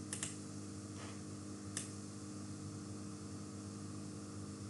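Faint steady electrical hum with a few computer mouse clicks: two quick clicks right at the start and a single click just under two seconds in.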